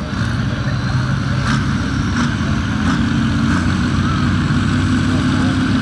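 Case 970 tractor's engine running hard at the start of a pulling run, its pitch stepping up about halfway through as it revs higher.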